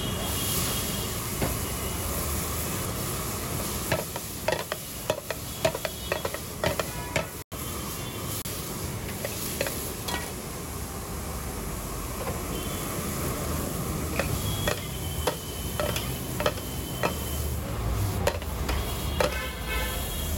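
Chopped onion, tomato and capsicum frying in butter in a large metal pan over a gas burner, with a steady sizzle. A metal spatula clinks and scrapes against the pan in bursts of stirring, once a few seconds in and again in the second half.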